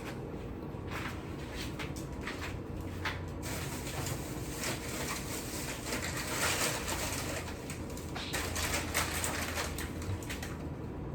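Frozen food packages being handled and packed into a freezer: scattered plastic crinkles and light knocks over a low steady hum.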